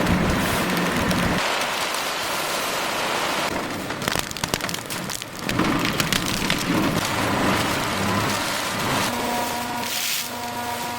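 Recycling-plant machinery running with a steady noisy hiss, with a stretch of rapid rattling clatter about four to five seconds in.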